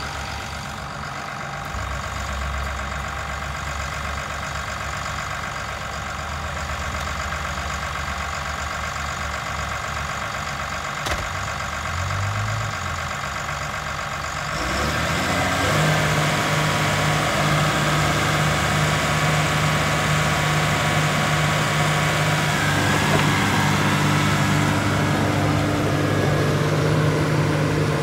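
Caterpillar D5M bulldozer's diesel engine running steadily. About halfway through it gets louder and higher in pitch, then holds steady at the higher speed. It runs smoothly, which the seller calls running beautifully.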